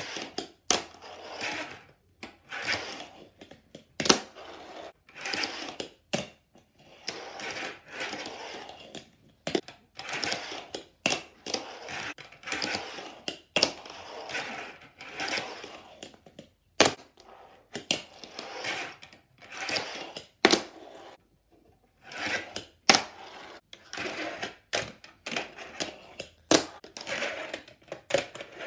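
Fingerboard ridden on a tabletop: its small wheels roll with a hiss in stretches of a second or two, broken again and again by sharp clacks as the board pops, lands and hits the ramps.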